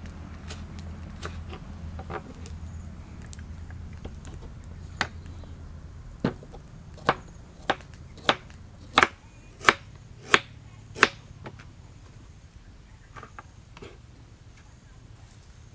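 Kitchen knife chopping on a round wooden chopping board: a few light taps, then a run of about nine sharp strokes a little over half a second apart, the loudest near the middle of the run, before it falls back to a few faint taps.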